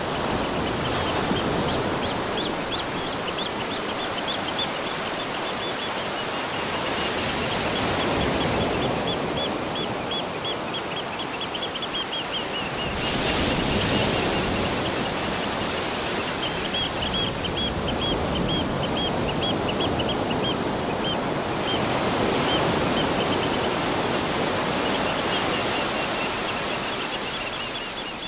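Ocean surf washing in waves that swell and ebb every six to eight seconds, with birds calling over it in quick runs of high repeated chirps.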